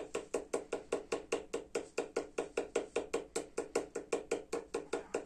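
Pen tip tapping quick dots onto a sheet of paper on a tabletop, about five or six even taps a second. This is the timed rapid-dotting hand test of the Motor Assessment Scale.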